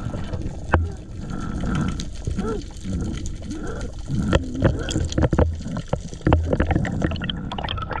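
Water sounds recorded underwater: gurgling and sloshing, with scattered sharp clicks and a few dull low thumps, several of them from about four seconds in.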